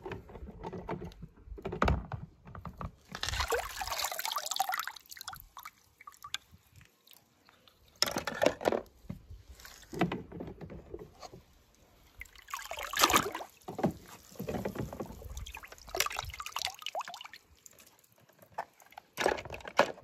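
Water splashing and sloshing in a plastic tub in several separate bursts, with scattered knocks of plastic toy cars being handled in between.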